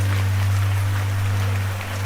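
Steady rain falling, with the patter of drops, over a loud, steady low hum.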